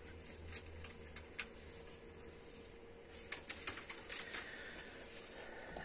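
Paper and cardstock being handled and set down on a cutting mat: faint, scattered light taps and rustles, busier about three seconds in.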